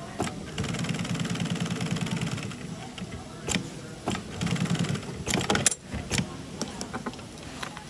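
Sewing machine stitching nylon webbing in short runs, typical of back-tacking, with sharp clicks and knocks from the machine and the handling between runs. The louder clicks come a little past the middle.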